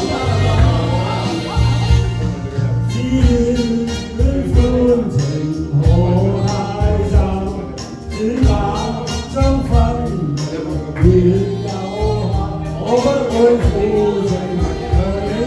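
A man singing a karaoke duet into a handheld microphone over a music backing track with a steady bass line, amplified through speakers.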